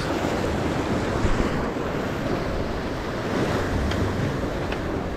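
Ocean surf washing and breaking over shoreline rocks, with wind buffeting the microphone.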